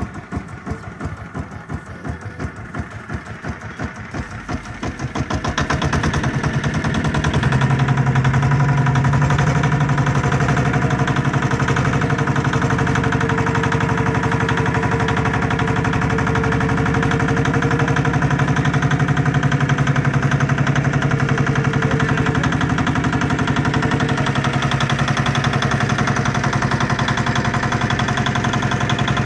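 Small fishing boat's engine idling with a slow, even knock, then speeding up about five seconds in and running steadily as the boat gets under way.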